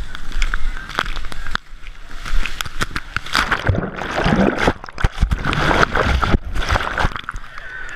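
Sea water splashing close on the microphone as a wader runs into the surf, then a dense, churning slosh and gurgle of foaming whitewater from about three seconds in, as the camera is plunged into the breaking waves.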